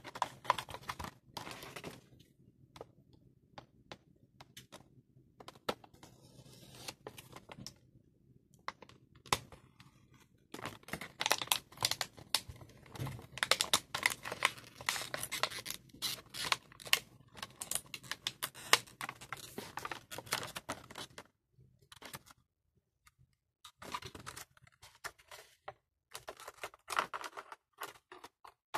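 Stiff clear plastic blister packaging being handled and pried open: irregular clicking and crackling, densest through the middle, with a few short pauses.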